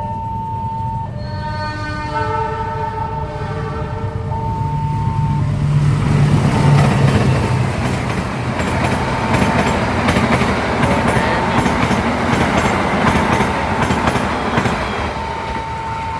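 Train horn sounding a chord of several steady tones for about three seconds near the start. The train then passes close by, with a loud rumble and fast wheel clatter over the rails that peaks about six seconds in. A single steady high tone sounds on and off throughout.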